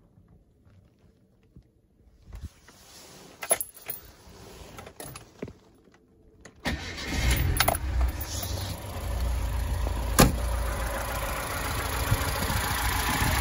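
A 2007 VAZ-2107's fuel-injected four-cylinder engine: a few clicks and a faint hum with the key on, then about seven seconds in the engine cranks and catches at once, settling into a steady, quiet idle.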